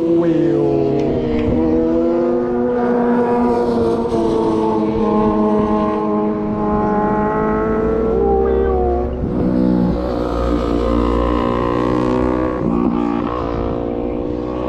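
Car engine held at high revs while the car spins on asphalt, its pitch swelling and sagging slowly, mixed with a long, wavering tyre squeal.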